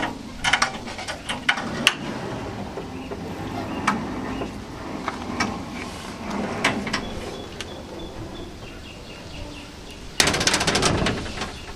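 Box truck's spring-assisted plywood ramp gate being lifted by hand, its ungreased springs, cable tensioners and cables creaking with scattered clicks and knocks as it swings up. About ten seconds in it shuts against the rear door frame with a loud, rapid rattling clatter.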